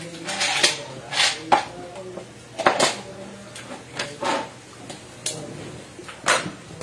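Plastic cups and a paper drink cup knocking and clattering as they are handled and set down on a plastic folding tray: a string of sharp taps and knocks about a second apart.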